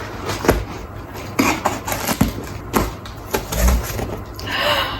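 A package being cut open with a knife and handled: scattered clicks and knocks, with a short scraping rasp near the end.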